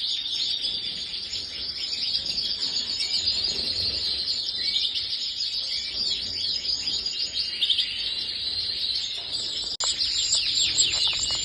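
Many domestic canaries chirping and trilling together, a dense, steady chatter of quick high chirps. There is a brief cut-out about ten seconds in.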